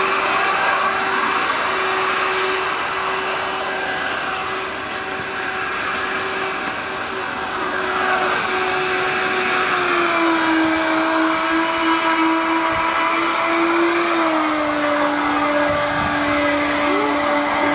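Small electric motor of a homemade RC jet boat whining steadily as the boat runs through the water, over a hiss of water spray. The whine steps down in pitch twice, about ten seconds in and again a few seconds later.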